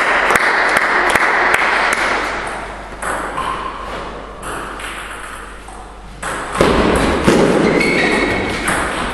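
Table tennis ball bounced repeatedly, about two or three sharp clicks a second, as the server readies to serve, over a steady rushing noise that fades midway. Near the end the ball is in play, clicking off bats and table in a rally.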